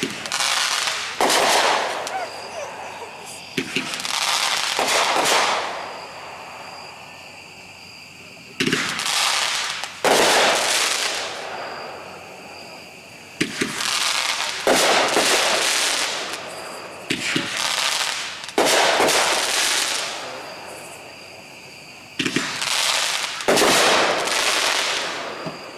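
Boomwow 'Vampire Bride' 14-shot aerial firework going off shot after shot: each a launch thump, then about a second later the shell's break trailing off in a hiss of a couple of seconds. About six shots are heard.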